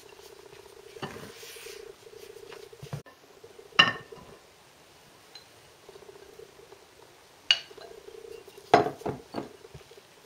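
A silicone spatula stirs and folds flour into soft batter in a ceramic mixing bowl, with a few sharp clinks of a glass bowl and utensil against the mixing bowl. The loudest clink comes about four seconds in, and a cluster follows near the end. A low steady hum comes and goes underneath.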